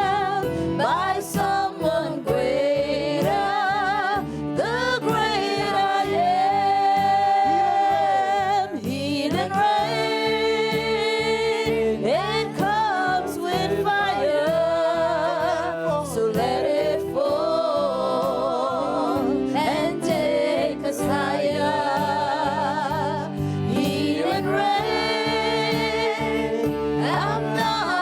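Gospel worship music: voices singing long, wordless or unclear lines with heavy vibrato over an accompaniment with a steady beat.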